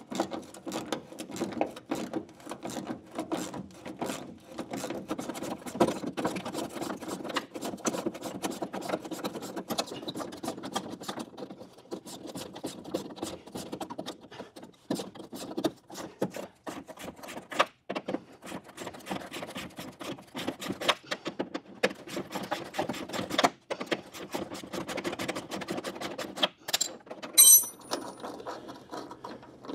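Hand ratchet clicking in quick strokes as a lower fender bolt is worked out against a broken spring-steel backing clip. A brief high-pitched metal squeak comes near the end.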